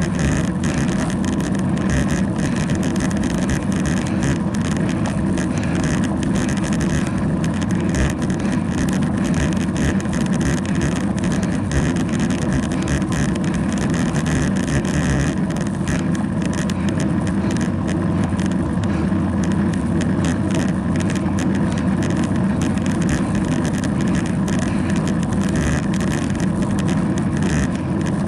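Steady rush of wind and tyre noise on a bicycle-mounted camera while the bike rolls at speed along the road, heavy in the low end and unbroken throughout.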